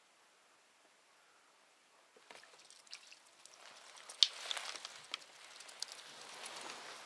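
Near silence, then from about two seconds in water splashing and trickling close by, mixed with small clicks and knocks, loudest around four seconds in.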